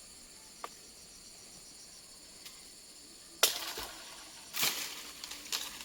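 Steady high chirring of insects, with a sharp loud crack about three and a half seconds in, followed a second later by a longer rustling burst and another short one near the end.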